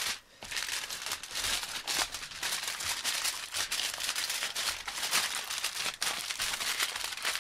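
Aluminium foil crinkling and crackling as hands roll and crimp the edges of a foil pack to seal it. The crackling starts a moment in and keeps on without a break.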